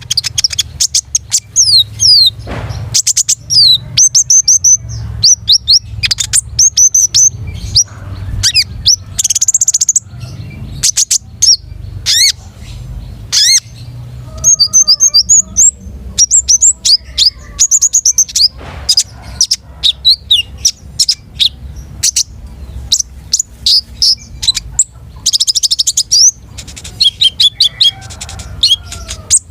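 A konin songbird singing loudly and nonstop: fast runs of sharp, high-pitched chirps and quick whistled slurs, broken by short pauses.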